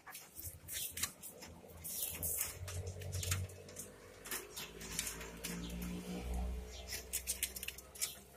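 Dry straw in a nest crackling and rustling in short clicks as a hand handles the egg and moves through it. A low steady hum runs underneath in the second half.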